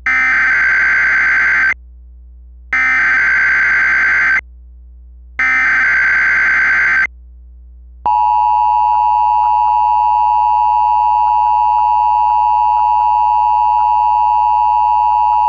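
Emergency Alert System SAME header: three identical bursts of data warbling, each under two seconds with about a second between them. About eight seconds in, a loud steady single-pitch warning alarm tone near 1 kHz begins and holds. Together they open a NOAA Weather Radio Required Weekly Test.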